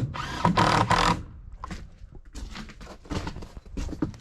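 A power drill runs for about a second, driving a fastener, then a few light knocks.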